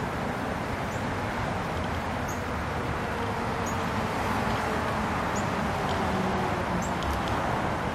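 Steady outdoor background noise with a low rumble, and short high bird chirps every second or so.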